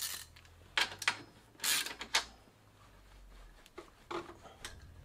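A loose steel seat post being twisted and shifted in a bicycle's seat tube by hand, making a series of short scrapes and rubs of metal on metal, about eight in all.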